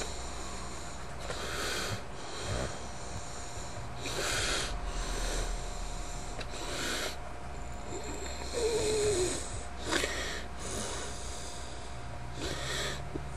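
A person breathing close to the microphone, about six audible breaths roughly two seconds apart, over a faint steady hum.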